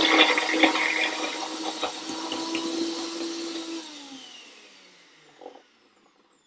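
Jug blender running on a raw hummus mixture, a steady motor hum with scattered knocks. About four seconds in it is switched off, and its motor whine falls in pitch as it winds down to a stop.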